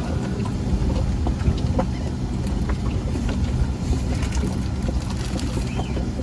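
A motor running with a steady low hum and rumble, with scattered small clicks and knocks over it.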